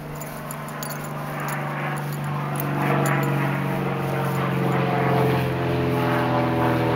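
Small propeller plane's engine droning overhead, swelling steadily louder, its pitch sagging slightly in the second half.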